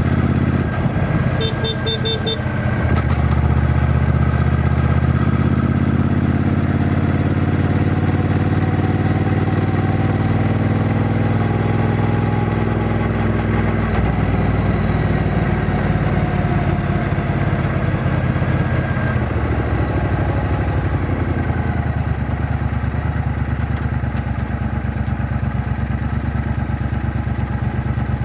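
Triumph Bonneville T120's 1200 cc parallel-twin engine running under way, its note changing a few times as speed and gear vary. A quick series of about four short beeps sounds about a second and a half in.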